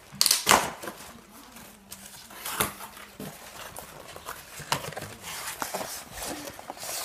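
A long cardboard box being opened and handled: the cardboard scrapes, rustles and knocks as its flap is pulled open, with a few sharp loud scrapes, the loudest just after the start.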